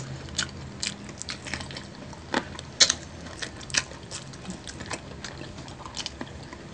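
Close-miked eating of crispy fried chicken: irregular crunchy crackles and wet mouth clicks as the pieces are bitten and chewed, loudest a little past two seconds in.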